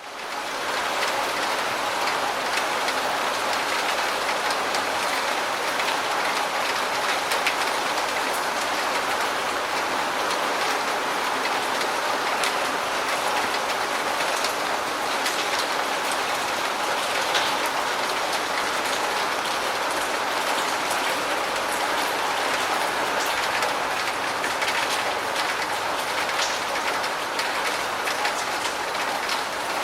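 Steady rain falling, a dense even hiss with scattered ticks of individual drops.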